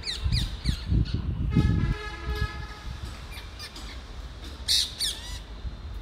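Rose-ringed parakeets screeching in short, sharp falling calls, in a burst in the first second and again near the end. A long steady tone holds for about a second from a second and a half in, over a low rumble.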